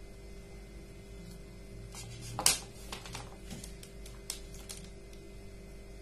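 Handling noise: a few sharp clicks and knocks of plastic parts on a wooden table as a small cooler water pump is set down and a switch is picked up. The loudest comes about two and a half seconds in, over a steady low hum.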